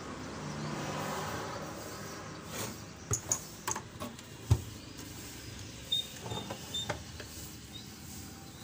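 A scatter of small clicks and taps from tools and parts being handled on a TV circuit board while a replacement electrolytic capacitor is fitted. The loudest is a sharp tap about four and a half seconds in. A steady noise runs underneath.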